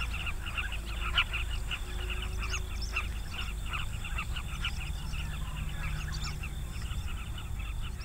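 Dense chorus of many birds giving short, rapid calls all at once, with one louder call about a second in.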